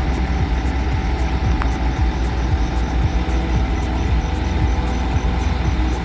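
Truck-mounted concrete boom pump and the transit mixer feeding it running on their diesel engines, a steady low rumble, while the pump delivers concrete for a pier column pour.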